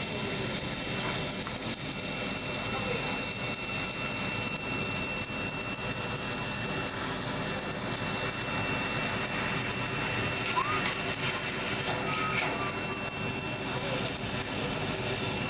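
Steady machine noise from an automatic longitudinal seam welding machine at work: an even hiss with a thin, steady high whine.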